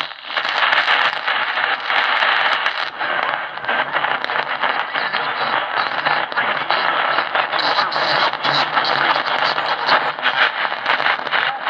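Tecsun PL-680 portable receiver's speaker playing a medium-wave AM station at 680 kHz, buried in heavy hiss and crackle with only weak, garbled talk coming through, as the radio is switched through its upper-sideband, synchronous lower-sideband and plain AM modes.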